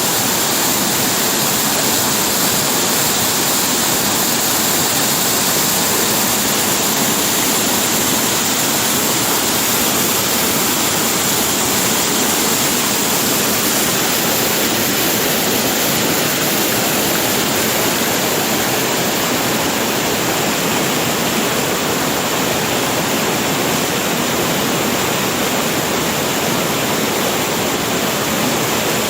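Waterfall cascading down a rocky cliff: a steady, even rush of falling water.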